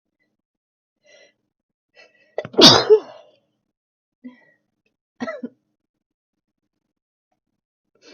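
A person sneezes once, loudly and suddenly, about two and a half seconds in, after a couple of faint short breaths. Two quieter, shorter sounds follow over the next few seconds.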